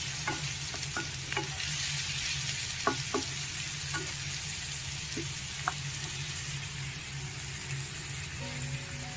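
Potato pieces and spices sizzling steadily in hot oil in a non-stick pan, with a spatula scraping and tapping against the pan as they are stirred. Background music comes in near the end.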